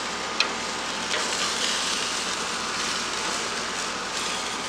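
Sausages sizzling on a gas grill over open flame, a steady hiss, with a sharp click of tongs against the grate about half a second in and a fainter one a little later.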